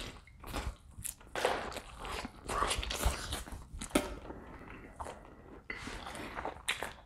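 Rotisserie chicken being bitten and chewed right at a clip-on microphone: irregular bites and mouth sounds from eating a drumstick.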